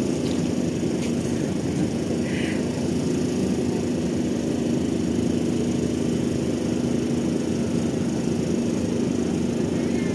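Ship's engine running with a steady low drone and a held hum.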